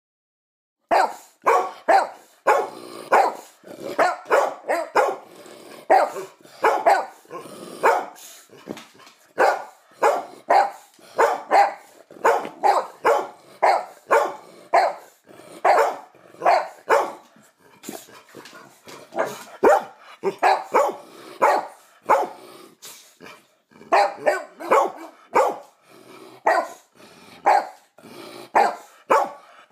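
Dogs barking over and over, about two barks a second, with a short pause about two-thirds of the way through.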